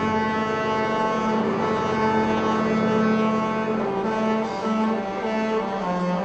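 Cruise ship's musical horn playing a tune in low, held notes, several pitches sounding together and changing every half second to a second.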